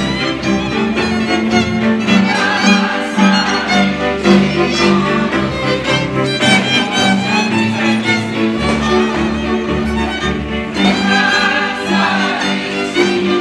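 Hungarian folk string band (fiddles and double bass) playing a dance tune for a táncház, fiddles bowing over a steady bass line.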